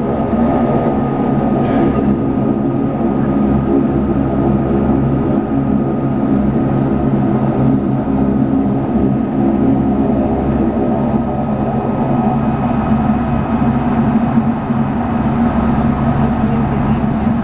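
Cabin drone of a Saab 340B's twin General Electric CT7 turboprop engines and propellers running steadily: a steady hum with a thin high whine in it.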